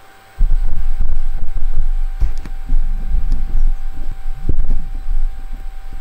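Irregular low thumps and rumble of a handheld camera's microphone being bumped and handled, starting abruptly a moment in, over a faint steady hum.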